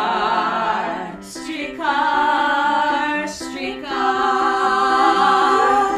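Music: a chorus of voices singing three long held notes over an accompaniment, the closing of a show-tune-style song.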